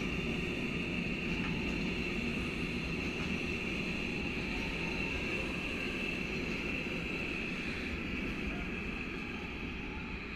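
Freight train's wagons rolling past on the track: a steady rumble with a high-pitched ringing tone over it, slowly fading toward the end as the train draws away.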